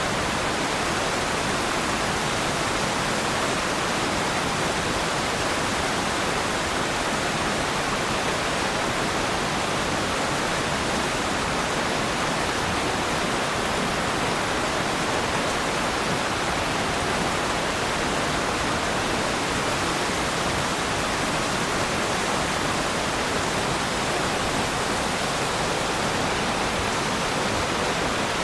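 Waterfall: a steady, unbroken rush of falling water, even in level.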